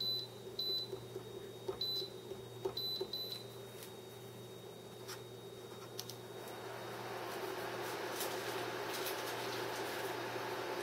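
Glass-ceramic cooktop's touch controls beeping about six times in quick short high tones, as the burner is set to low heat, over a steady low hum. From about six seconds in a soft, even hiss builds and holds.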